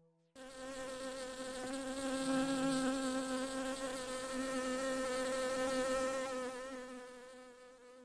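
A bee buzzing: a steady, slightly wavering drone that starts suddenly just after the start and fades away near the end.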